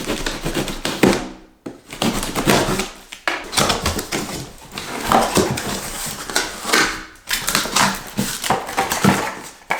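Cardboard box and packaging scraping, rustling and knocking as a boxed pressure washer is wrestled out of it, in irregular bursts with short pauses.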